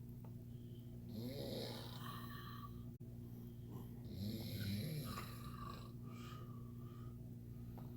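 Snoring: two long, rasping snores, one about a second in and one about four seconds in, over a steady low hum.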